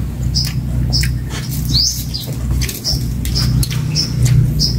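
A small bird chirping over and over in short high notes, about two a second, with one longer rising call near the middle. Under it run a steady low hum and the soft clicks and smacks of people chewing food.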